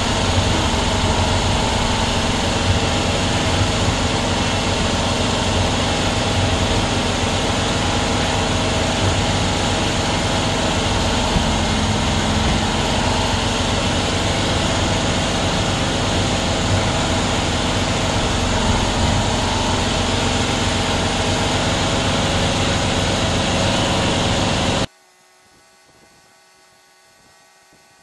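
1962 VW single-cab pickup's air-cooled flat-four engine idling steadily while it warms up. The sound cuts off abruptly near the end, leaving only a faint steady hum.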